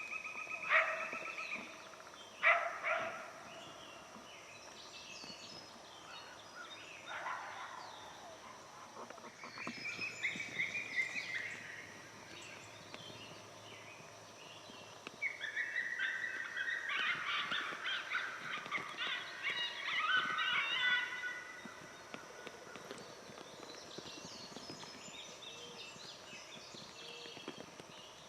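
Coyotes howling and yipping. A few howls come in the first few seconds, then a dense group chorus of yips and howls lasts about six seconds in the middle, over a faint steady insect drone.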